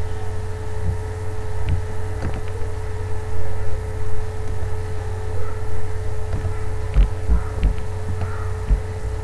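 Steady low hum with a thin steady tone above it, and a few soft low thumps in the last couple of seconds.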